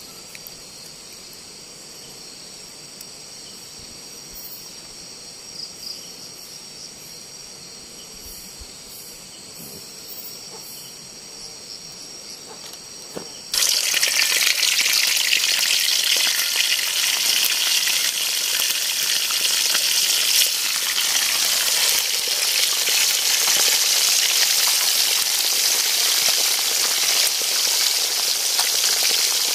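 Insects chirr steadily and faintly, then about halfway through fish is laid into hot oil and a sudden loud frying sizzle starts and keeps going.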